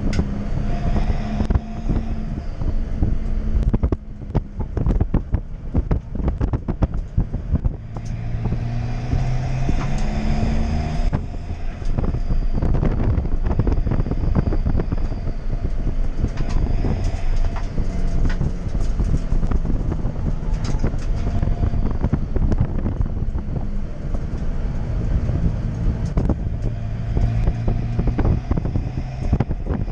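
Toyota Yaris D-4D turbodiesel engine heard from inside the car as it laps a track. The engine note rises and drops in steps with the gear changes. Constant rattling and knocking comes from the stripped, roll-caged cabin.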